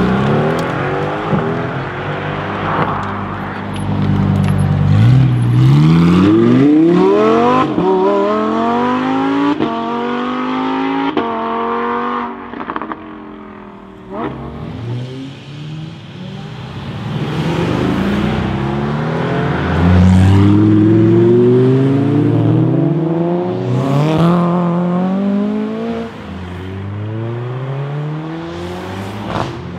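Mercedes-AMG GT R's twin-turbo V8 accelerating hard away through the gears, the engine pitch climbing in each gear and dropping back at every upshift, then fading into the distance. After it, more cars accelerate off the same way with repeated rising revs and gear changes.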